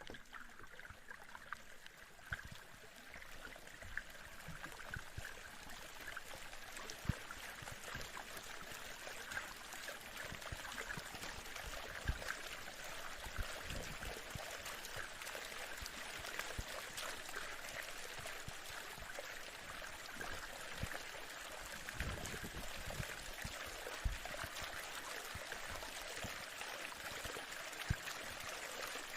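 Sea waves: a steady wash of surf that swells over the first few seconds and then holds, with a few soft low thumps.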